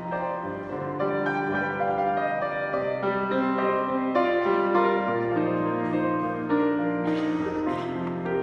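Grand piano playing a slow passage of held chords with a melody on top, the notes ringing on.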